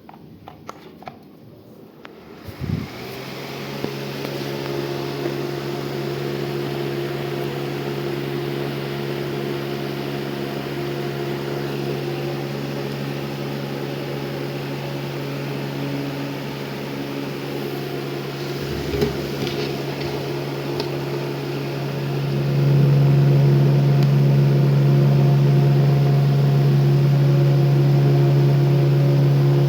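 Electric fan switched on with a click about three seconds in, then running with a steady hum and rush of air. About 22 seconds in it steps up and runs louder.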